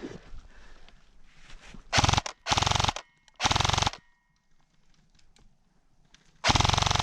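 Airsoft rifle firing four short full-auto bursts: three in quick succession about two seconds in, then a fourth after a pause of about two and a half seconds.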